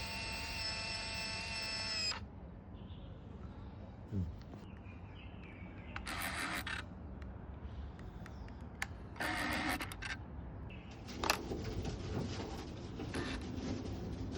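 Fuji 120 film camera's motorised film advance whining steadily, then stopping abruptly about two seconds in as it auto-winds the film. After it come a few short handling noises and a sharp click.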